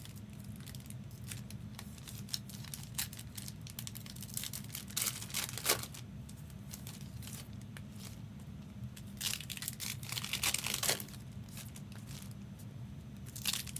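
Trading card packaging being torn open and crinkled by hand, in scattered rustles and bursts, the loudest about five and ten seconds in, over a steady low hum.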